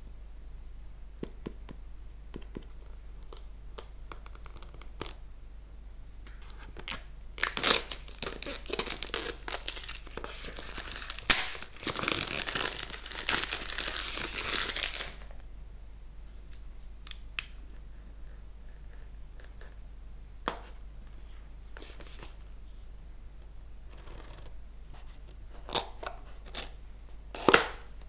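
Clear plastic shrink-wrap being torn and peeled off a cardboard product box, crinkling loudly for about eight seconds in the middle. Before and after it there are scattered short clicks and taps of handling, with one sharper click near the end.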